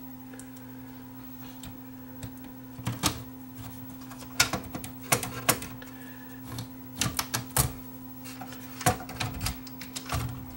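Scattered metallic clicks and taps from a screwdriver and hands working on the mechanism of an open cassette deck, at irregular intervals, over a steady low hum.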